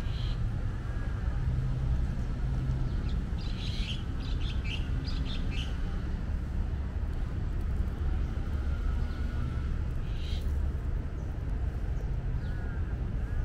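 Small birds chirping and calling over a steady low rumble. A cluster of quick high chirps comes about four to six seconds in, and short arching calls recur several times.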